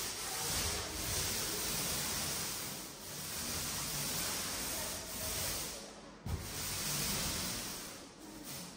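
Emulsion paint being applied to a wall as a second coat: a hissing swish that swells and fades repeatedly, with a sharp knock about six seconds in.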